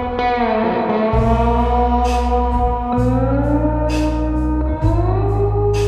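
Background music: a slide guitar gliding between notes over a steady bass line and a regular cymbal beat.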